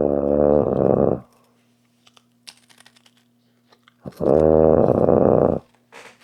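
Loud snoring: two long snores about four seconds apart, each lasting about a second and a half.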